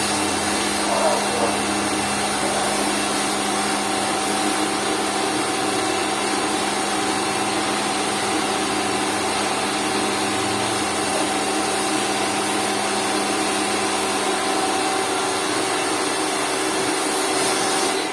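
Lakoni Laguna 70 electric pressure washer running steadily: a constant motor hum under an even hiss of spray.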